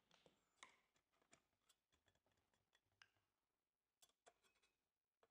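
Near silence with faint, scattered clicks and taps of metal parts being handled as the hot-air welder's nozzle is adjusted by hand.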